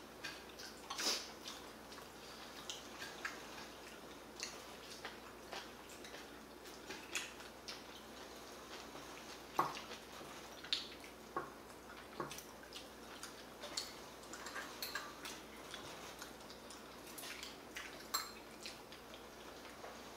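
Eating at the table: metal chopsticks and a spoon clicking against a bowl at irregular moments, with small wet chewing and mouth sounds in between.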